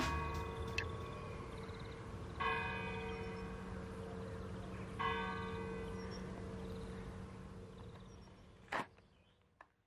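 A church bell tolling slowly: three strokes about two and a half seconds apart, each ringing on with a long hum that dies away, then the sound fades out and stops near the end.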